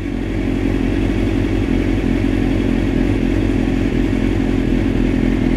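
A 1997 Suzuki GSX-R 600 SRAD's carbureted inline-four idles steadily with an even hum, its gummed-up carburetors freshly cleaned and the high idle just turned down.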